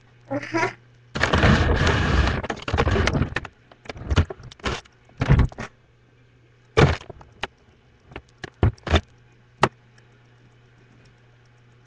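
Rustling and handling noise for about two seconds, then a scattered series of sharp clicks and knocks, over a steady low electrical hum.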